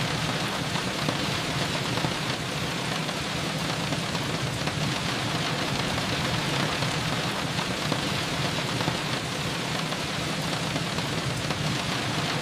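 Steady rain falling, a continuous even hiss with a low rumble beneath.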